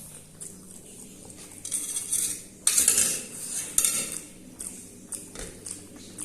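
Cutlery scraping and clinking against a dish of Maggi noodles, in a few loud scrapes between about two and four seconds in, with softer clicks around them.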